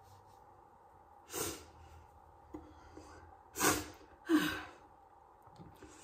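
A woman's sharp breaths: three short rushes of breath through the nose and mouth, one about a second and a half in and two close together a little past the middle, the last ending in a brief voiced sigh that drops in pitch.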